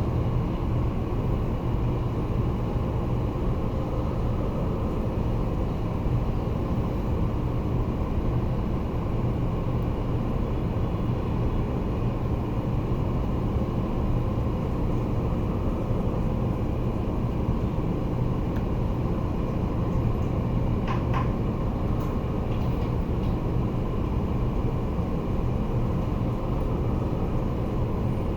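Steady low machine drone with a hum, unchanging in level, with a few faint ticks about three-quarters of the way through.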